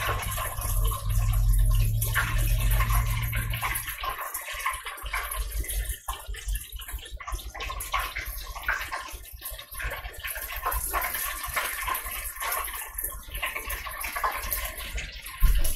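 Chicken deep-frying in hot oil in a lidded electric deep fryer, with a steady crackling sizzle. A low rumble, which the cook takes for a truck outside, runs under it for about the first four seconds and comes back near the end.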